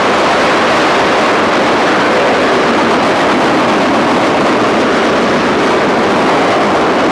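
Coal train hauled by C&O 614, a 4-8-4 steam locomotive, passing close at high speed: a steady, loud rushing roar of the cars rolling by on the rails.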